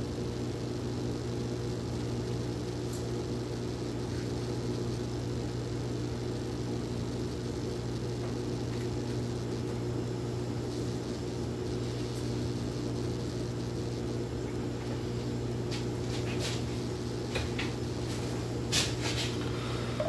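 A steady mechanical hum with a low drone. In the last few seconds, a few light clicks and knocks of hands and a knife on a wooden cutting board.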